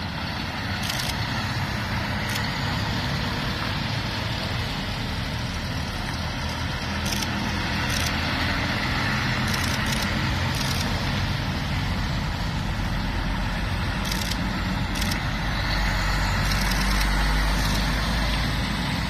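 Diesel engines of articulated lorries running as they pull slowly through a yard gate, a steady rumble that grows deeper and louder near the end, with a few short sharp ticks over it.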